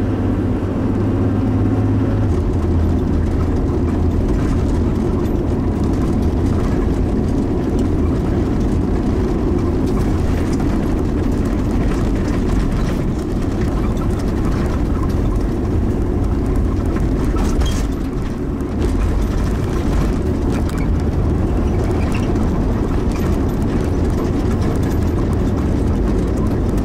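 Steady engine and tyre drone inside the cabin of a car towing a caravan, with a low hum that drops in pitch about two seconds in.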